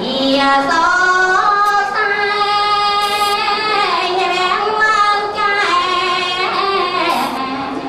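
A woman singing a solo chant into a microphone, holding long, drawn-out notes that slide slowly up and down in pitch.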